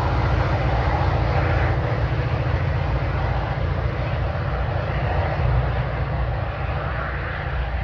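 Diesel locomotive running as it pulls away down the line, a steady deep rumble that eases slightly toward the end.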